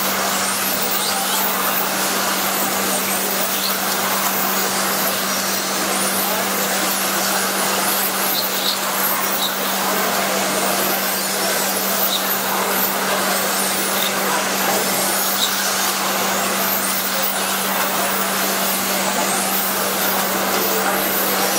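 Radio-controlled touring cars racing on an asphalt track: a steady high hiss and whine of small motors and tyres, with brief rising and falling sweeps as cars pass, over a steady low hum.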